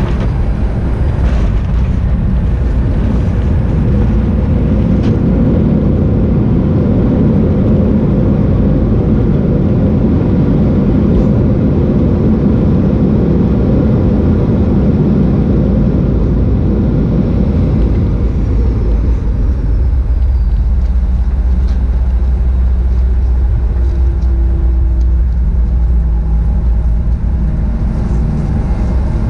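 Cabin noise of a Boeing 737-900ER decelerating on the runway after touchdown: a loud rumble of its CFM56 engines and rolling wheels. About 18 seconds in it eases off into a steadier, quieter low hum as the jet slows to taxi speed.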